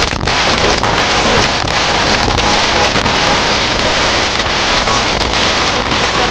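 Loud dance-song playback from a stage sound system, so overloaded in the recording that it comes through as a dense wash of distorted noise with little clear melody.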